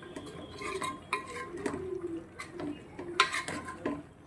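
A metal spoon stirring and folding par-cooked rice into vegetable masala in an aluminium pot, scraping through the rice and knocking against the pot's sides with a few short ringing clinks. This is the rice being mixed into the gravy for vegetable biryani.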